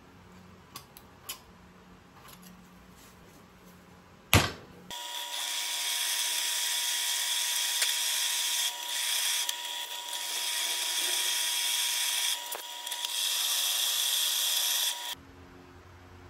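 Benchtop drill press boring a hole into a small steel block: a loud, steady high-pitched whine and cutting hiss that starts suddenly about five seconds in, dips briefly a few times, and stops abruptly near the end. Before it come a few small clicks and one sharp knock.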